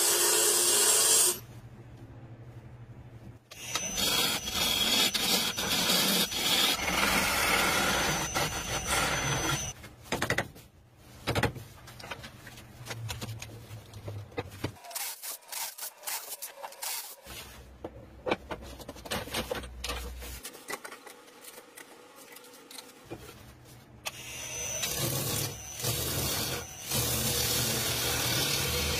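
Turning tool cutting into a wooden blank spinning on a wood lathe: a rough scraping hiss as shavings come off. It comes in several stretches, with quieter spells and scattered knocks between them while the cutting stops.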